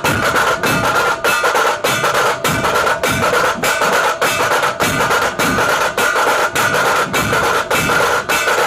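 Background music with a fast, steady drum beat over a sustained melody.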